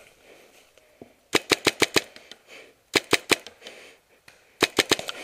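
Paintball marker firing three quick strings of four or five shots each, a second or so apart.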